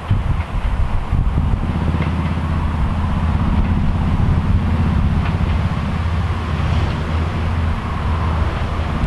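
Class 205 'Thumper' diesel-electric multiple unit approaching, its four-cylinder English Electric diesel engine running with a steady, deep, even beat. The engine note changes about seven seconds in.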